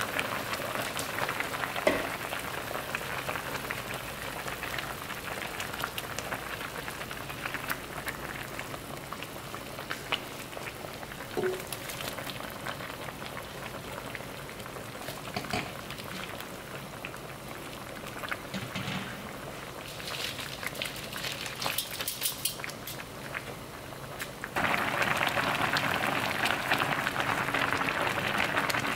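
Pollack stew bubbling at a boil in a wide pot, a steady bubbling hiss with scattered small pops. Near the end the bubbling becomes clearly louder and fuller.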